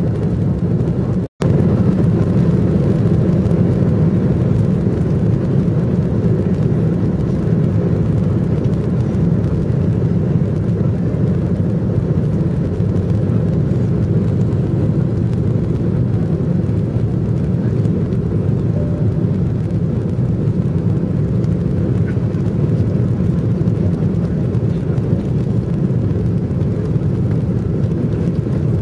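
Steady low rumble of a jet airliner's engines and airflow heard inside the passenger cabin during the descent on final approach. The sound cuts out completely for a split second just over a second in, then resumes unchanged.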